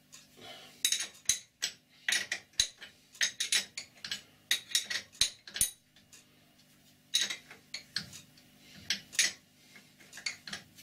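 Small steel spanner clinking against the nut at the end of a lathe's cross-slide screw as the nut is worked loose in short strokes: a fast run of sharp metallic clicks, with a brief pause about six seconds in.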